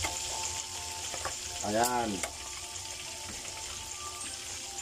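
Hot cooking oil sizzling steadily in a pan as a yellowfin tuna jaw deep-fries, with a few sharp pops.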